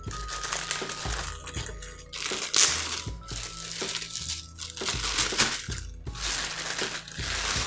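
Plastic packaging crinkling and rustling in several stretches as a camera body is unwrapped by hand, over quiet background music.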